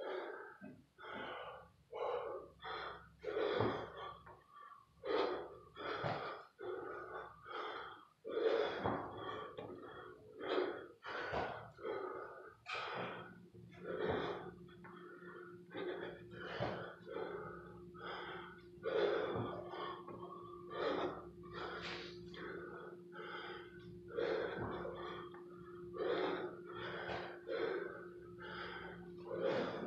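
Hard, rapid breathing of a man doing burpees: a sharp gasp or forced exhale a little more than once a second, panting from the effort.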